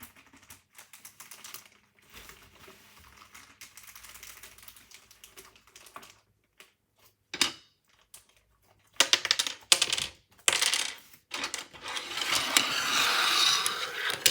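Loose plastic keycaps clicking and clattering against each other as they are handled and sorted through. The clicks are faint at first, with one sharp click about halfway through, then louder clattering and a rattling stretch near the end.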